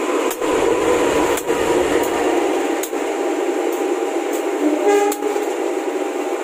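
Diesel locomotive air horn held in one long blast of several tones at once, over a loud rumble of a passing train, with repeated sharp clicks.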